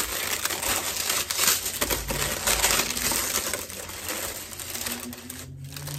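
Paper packaging rustling and crinkling in quick irregular crackles as a pair of slides is unwrapped by hand, easing off near the end.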